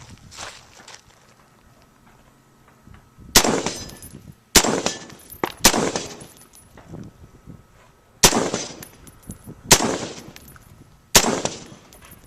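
Six rifle shots fired at an uneven pace, with gaps of about one to two and a half seconds, each with a rolling echo. A short high metallic ring follows several shots: steel targets being hit.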